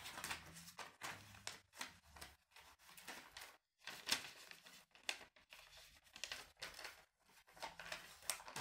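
Paper and thin card being handled, a faint run of short, irregular crinkles and rustles.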